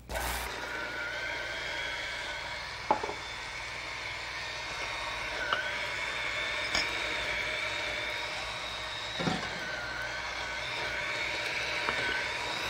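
Electric blender running at full speed, puréeing raw chicken livers. It starts abruptly and holds a steady whirring, with a sharp knock about three seconds in.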